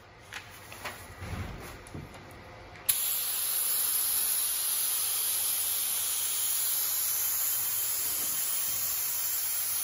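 ezGluer Handgun spraying Wilsonart 3037 cold glue from a pressure-fed hose: a steady, even hiss of atomising adhesive that starts abruptly about three seconds in. Before it come a few soft knocks and rustles.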